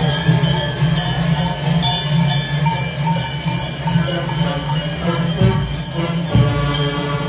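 Many large bells on the Rölli carnival costumes jangling as the figures march, over band music. Toward the end, brass band music takes over.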